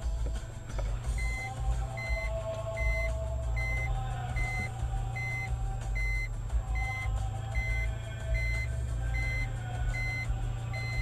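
Evenly spaced electronic warning beeps, a little over one a second, starting about a second in, as a car reverses. Underneath is the low steady hum of an idling car engine.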